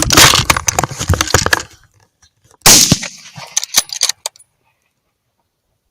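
Rifle shots fired in quick succession by two hunters shooting at pigs, with sharp cracks and echoes crowding together. A second loud shot comes nearly three seconds in, followed by a few more cracks, then the sound cuts off to dead silence.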